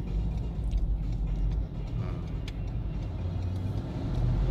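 Steady low rumble of a car's engine and tyres heard from inside the cabin while creeping in slow traffic.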